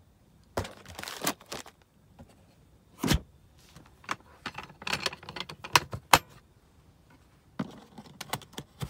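Clicks, knocks and rattles of a Milwaukee Packout plastic tool case being handled, with a heavier knock about three seconds in as the lid is shut and a run of clicks near the end as the case latches are worked.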